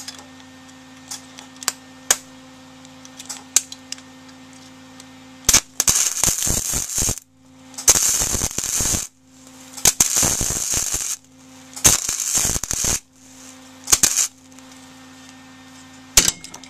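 Wire-feed welder arc crackling in four bursts of a second or so each, then two brief ones, as a nut is welded onto a broken bolt stud with the welder turned up hotter. A few light clicks come before the first burst.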